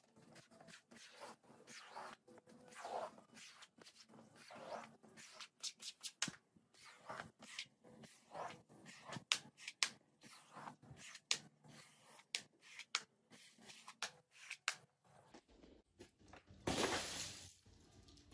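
Rubber squeegee pushing soapy water and foam across a wet rug: a series of short, wet scraping strokes, with a louder rush of noise near the end.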